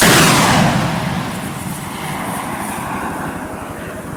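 Launch of a missile fired at a helicopter: a loud rocket-motor hiss that fades over the first two seconds into a quieter, steady rush as it flies away.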